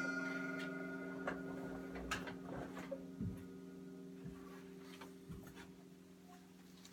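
Drum kit cymbals ringing on and slowly fading after a final crash, with a few faint taps and knocks as the drummer gets up from the kit.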